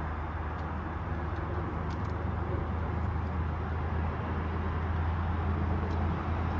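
Steady low hum of background noise, with a few faint, light clicks.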